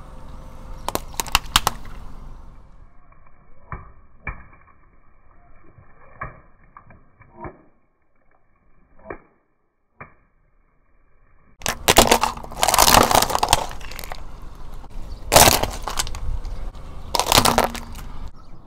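A car tyre rolls over water-filled long balloons, bursting them with sharp pops, then muffled clicks and splashes. In the last third come three loud crunching bursts as the tyre crushes plastic-wrapped packs of coloured sand.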